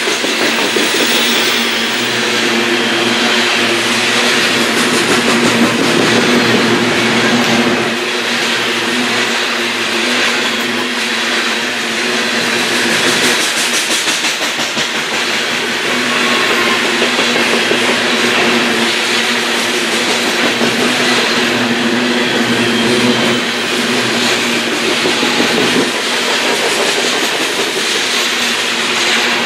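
Coal train rolling past on the rails: a loud, steady rush of steel wheels and freight cars, with a constant hum beneath.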